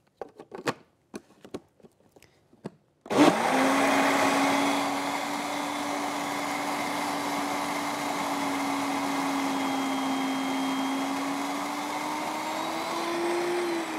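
Countertop electric blender: a few clicks as the lid is fitted on the jar, then about three seconds in the motor switches on and runs steadily, whirring a liquid mix of oil, milk and sugar to dissolve the sugar. Its hum rises slightly in pitch near the end.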